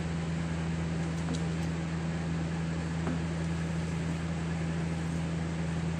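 A steady low mechanical hum with an even hiss, like a running fan or appliance motor. A couple of faint scraping ticks come from the metal ice-cream scoop on the frozen ice cream.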